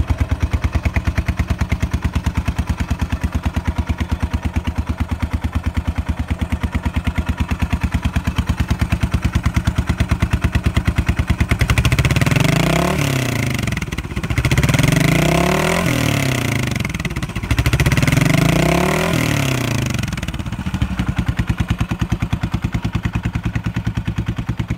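Yamaha SR400's single-cylinder four-stroke engine idling with an even, steady beat, then revved three times in quick succession about halfway through, each rev climbing and dropping back, before settling to idle again.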